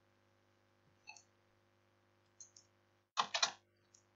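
Computer keyboard keystrokes: a few faint taps, then a quick cluster of three or four louder taps about three seconds in as a colon is typed into a spreadsheet formula. A low steady hum runs underneath.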